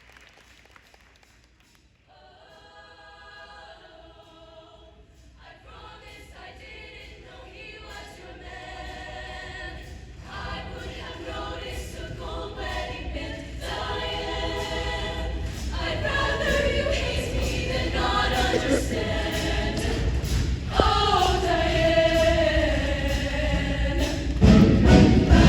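A show choir singing sustained chords in harmony. The singing enters softly about two seconds in and swells steadily louder, with a low accompaniment building underneath, reaching a loud climax near the end.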